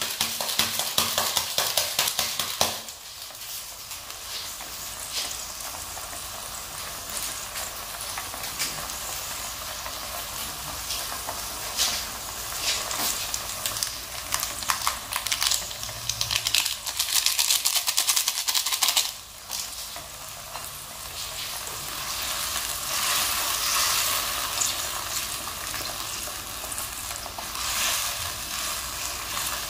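Food sizzling and crackling in hot oil in a pan, loudest for the first few seconds and again from about twelve to nineteen seconds in.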